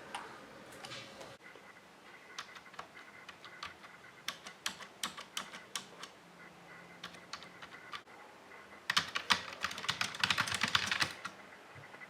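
Typing on a Logitech K480 keyboard's keys: scattered single key clicks at first, then a quick, louder flurry of keystrokes about nine seconds in that stops shortly before the end.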